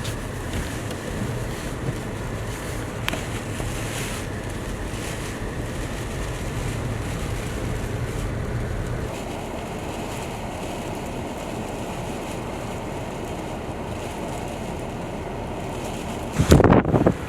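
Snowstorm wind blowing steadily, with wind buffeting the microphone. A much louder gust comes near the end.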